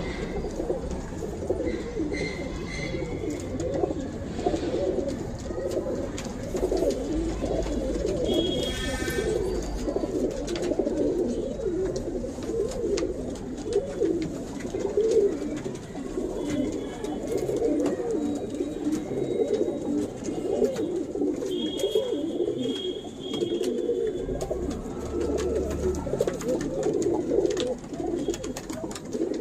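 Domestic pigeons cooing without a break, several birds overlapping, with a few brief higher-pitched calls now and then.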